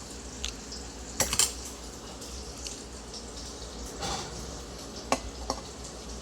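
Cutlery clinking and scraping on a plate during eating: a quick cluster of clinks about a second in, then a few single clinks later, over a steady background hiss.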